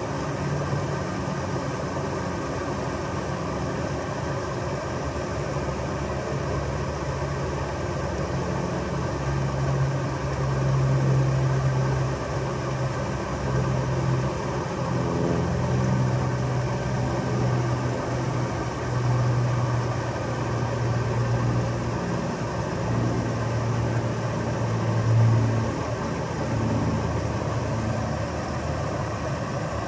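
Steady rush of a small creek cascade, with a low rumble that swells and fades several times.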